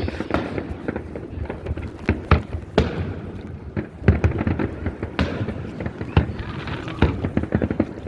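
Aerial fireworks going off in quick succession: a string of sharp booms and bangs, some louder than others, over a low rumble.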